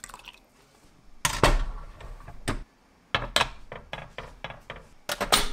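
Stainless steel pot of water being handled and set onto a gas stove's grate: a series of knocks and clunks, the loudest about a second in, with another quick cluster near the end.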